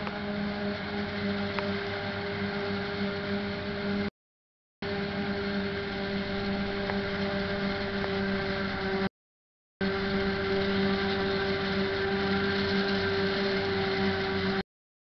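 Self-propelled forage harvester chopping maize, with a New Holland TM 150 tractor and trailer running alongside: a steady machinery drone with a constant-pitch hum. The sound cuts out completely for under a second three times: about four seconds in, about nine seconds in, and near the end.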